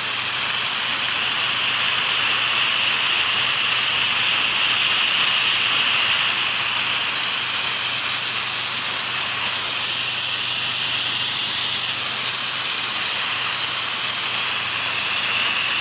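Pressure washer spray hissing steadily as the water jet rinses the house, with the machine's steady low drone underneath.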